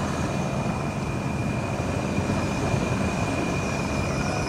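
Rhaetian Railway Capricorn electric multiple-unit coaches rolling past close by: a steady rumble of wheels on the rails with a constant high whine over it.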